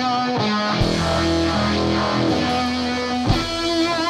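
Background music led by guitar, with held notes that change every half second or so and a heavy low hit about a second in and again near the end.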